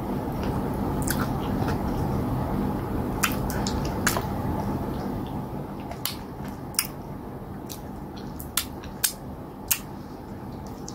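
Wet mouth sounds of eating fufu dipped in slimy okra soup by hand: sharp lip smacks and sticky clicks while chewing and swallowing, about ten of them scattered through, over a steady low background hum.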